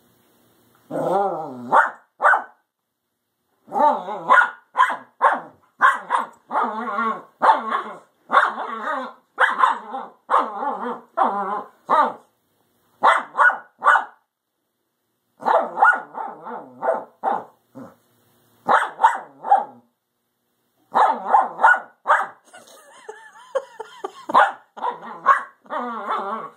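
Two young dogs barking and growling in play, in quick runs of short barks broken by pauses of a second or two.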